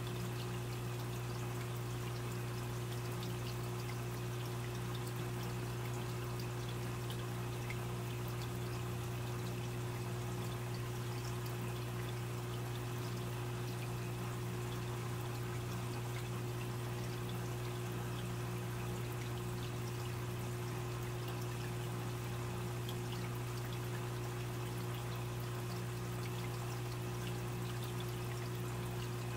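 Aquarium filter running: water trickling and splashing over a steady low hum, unchanging throughout.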